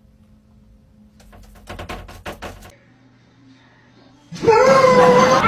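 A cat's paws tapping rapidly against a mirror's glass, a quick run of light knocks lasting about a second and a half. Near the end a loud, held vocal call starts suddenly and wavers slightly in pitch.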